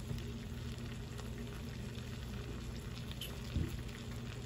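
Shrimp simmering in garlic butter and lemon sauce in a skillet: a steady soft sizzle with faint popping bubbles.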